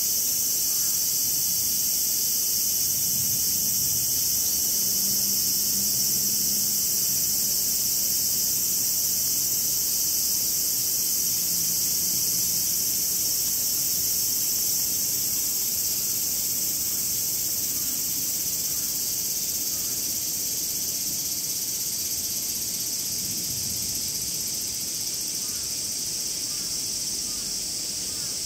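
Chorus of cicadas calling after rain, a steady, dense high-pitched buzzing that eases off a little near the end.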